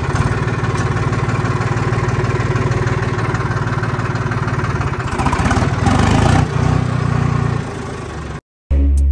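Sonalika DI-50 tractor's diesel engine running steadily with an even low pulse as the tractor drives off, growing louder for a moment about five seconds in. Near the end it cuts off and music begins.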